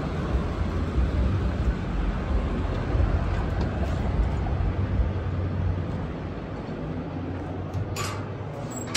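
Low, steady outdoor rumble that drops away about six seconds in as the doors close behind. Two or three sharp clicks follow near the end.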